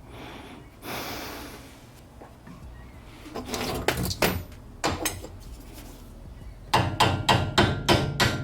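Metal tools and car parts clanking as they are handled, with a short hiss about a second in. Near the end comes a fast, even run of sharp knocks, about four a second.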